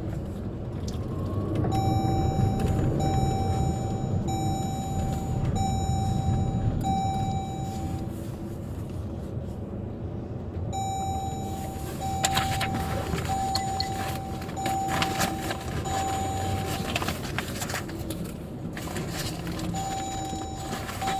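Police vehicle cabin with steady low engine and road rumble, and an electronic beep chiming about once a second in two long runs, with some clicks and rattles partway through.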